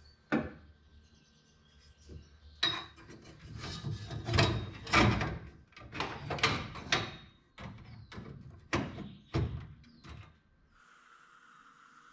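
A long thin aluminum strip being handled and fitted against a metal frame: a run of irregular clanks, knocks and scrapes, loudest about four to five seconds in. The handling stops near the end, leaving a faint steady shop hiss.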